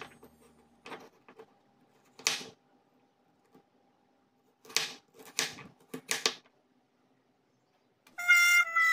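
Kitchen knife chopping carrot on a wooden cutting board: several separate chops with pauses between them, the loudest about two seconds in and three close together around five to six seconds in. Music starts near the end.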